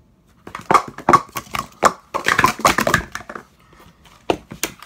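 Speed Stacks plastic sport-stacking cups clattering in a fast run of clacks for about three seconds as three stacks of three are upstacked and downstacked on a stack mat. A few more clacks follow about four seconds in.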